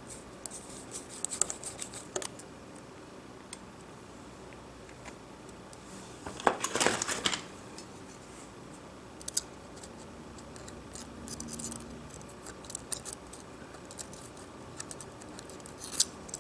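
Scattered small clicks and scrapes of hand tools working on the metal brackets and screws inside an opened iPhone 6 Plus, with a denser scraping rattle lasting about a second near the middle.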